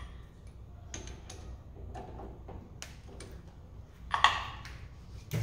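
Light metal clicks and taps as a twist drill bit is fitted into a drill chuck on a metal lathe's tailstock, with a louder ringing metal clank about four seconds in and another knock near the end.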